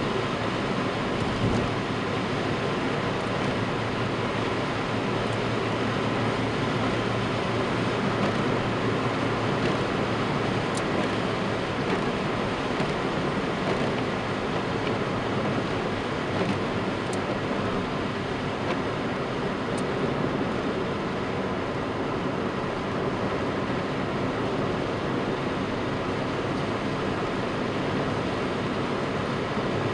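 Steady road noise inside a moving car's cabin: tyres on wet asphalt and the engine at a steady cruise, with a few faint ticks near the middle.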